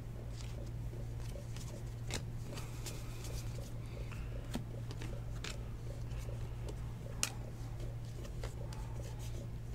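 Football trading cards being flipped through and slid against each other by hand: faint scattered clicks and light rustling of card stock over a steady low hum.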